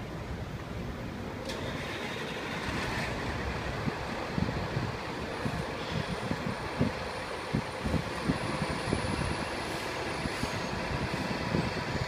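Diesel engine of an FDNY fire engine running with an uneven low rumble. There are a couple of short air hisses from the brakes near the start.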